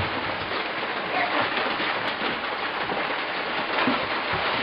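Rainwater coming in through a leaking roof, a dense steady patter of falling and splashing water.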